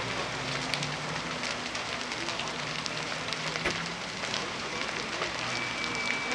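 A burning farmhouse and barn crackling and popping, over the steady hiss of water jets from fire hoses and a low steady hum. A brief high steady tone sounds near the end.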